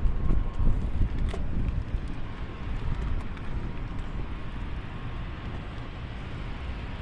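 Wind buffeting the microphone: a rough, gusty rumble that swells and eases, strongest in the first second or so, over a steady hiss.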